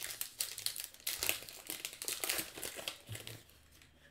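Baseball card pack wrapper crinkling and crackling in the hands as the pack is opened and the cards are slid out. The crackling is busy for about three seconds, then dies down near the end.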